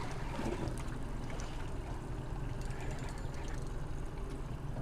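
A boat's engine running with a steady low hum.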